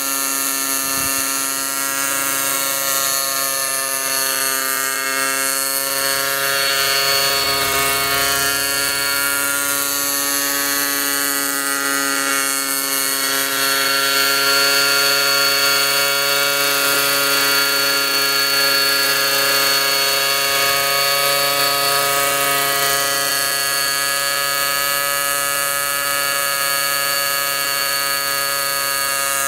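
Glow-engine (nitro) radio-controlled model helicopter, a Hawkpro 32, hovering: its engine and rotors make a steady buzzing drone that holds one pitch and swells slightly in loudness now and then.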